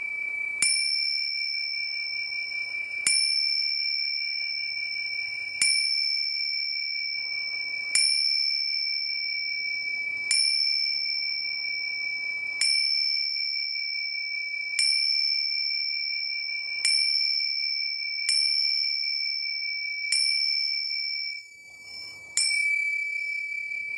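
A small high-pitched bell struck about every two seconds, each strike ringing on into the next so the tone never dies away. Near the end the ringing briefly fades almost out before the next strike.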